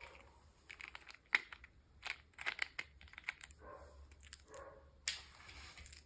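Plastic toy packaging being handled and opened by hand: crinkling and a run of small sharp clicks, the sharpest about a second in and another near the end.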